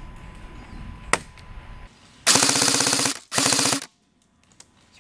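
Airsoft rifle fired full-auto close to the microphone in two short bursts of rapid shots, about three seconds in, scoring a hit on an opponent. A single sharp click comes about a second in.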